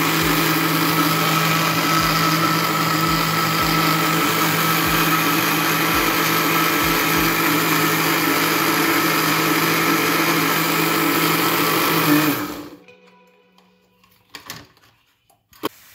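Westpoint electric blender running at a steady speed, grinding a thick green coriander-and-mint chutney. About twelve seconds in the motor switches off and quickly winds down, followed by a few faint clicks.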